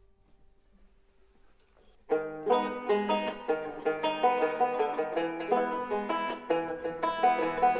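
A last held note fades to near silence, then about two seconds in a bluegrass band starts a new tune, with a banjo picking quick, sharply plucked notes over other plucked strings.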